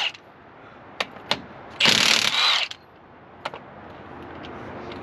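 Hand ratchet wrench worked in one quick run of clicking about two seconds in, with a few single sharp metal clicks before and after.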